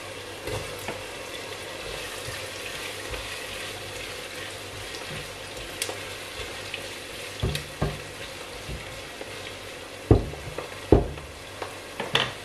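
Chopped onion and garlic sizzling and crackling in olive oil in a pot, with diced smoked bacon tipped in and stirred through with a spatula. There are a few sharp knocks of the utensil on the pot in the second half.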